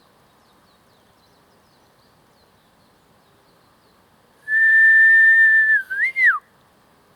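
A person whistling an imitation of a Japanese bush warbler's 'hoo-hokekyo' song: one long level note held for over a second, then a quick rising-and-falling flourish.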